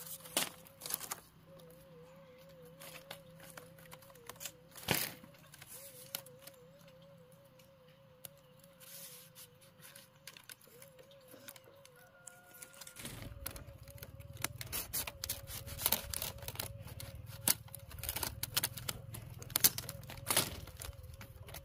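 Split bamboo strips being handled and laid out on bare dirt: scattered light clicks and knocks as strips are picked up, tapped and set against each other. A faint warbling tone runs underneath, and a low hum comes in about two-thirds of the way through.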